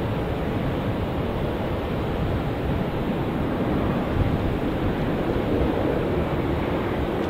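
Steady low rumble of a jet airliner's engines and airflow, an even noise with no distinct tones or changes.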